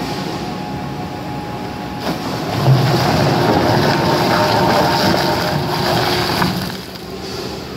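Four-shaft shredder running, its interlocking cutter shafts turning. About two seconds in it grows louder and rougher as a load of woven sacks is fed in and torn apart, then eases back near the end as the load is shredded through.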